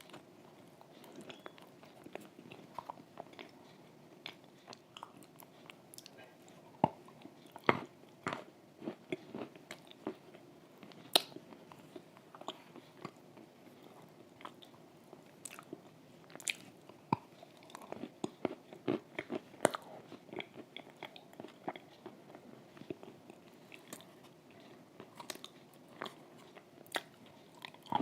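A person biting and chewing crunchy chalk and wet clay close to the microphone: scattered sharp crunches and moist mouth clicks with short quiet gaps between, a few bites standing out louder.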